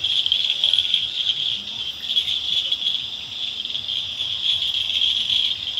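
Night insect chorus: crickets trilling together in a steady, high-pitched drone with no break.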